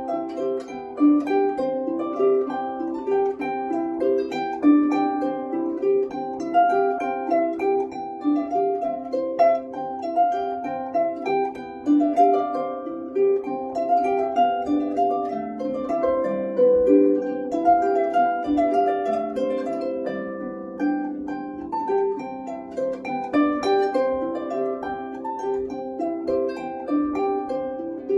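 Harp being played: a steady stream of quick plucked notes that ring on, with a few lower notes held longer about halfway through.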